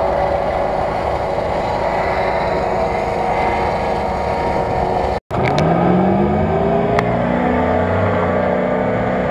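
Off-road vehicle engine running hard in deep mud. After a brief dropout about five seconds in, a Nissan Patrol's engine revs up and holds at high revs as it pushes through the mud.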